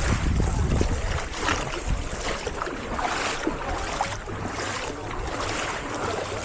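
Seaside ambience: wind buffeting the microphone with a low rumble in the first second, over a steady wash of sea and scattered small clicks and knocks.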